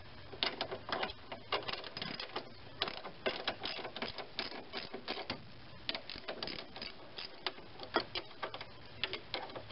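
Socket ratchet clicking in short runs of rapid clicks as it backs out a 10 mm bolt.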